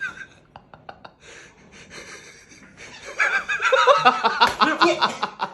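People laughing and snickering, loudly from about three seconds in, after a quieter stretch with a few soft clicks.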